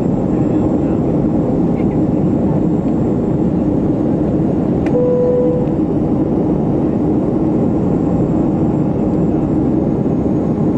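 Steady cabin noise of a Boeing 737-500 in flight, from its CFM56-3 engines and the airflow past the fuselage, with a constant low hum. A short single-pitched tone sounds about halfway through.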